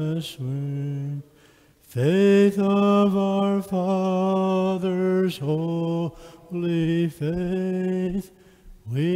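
A man's voice singing a slow hymn in long held notes, with short breaks between phrases: the entrance hymn of a Catholic Mass.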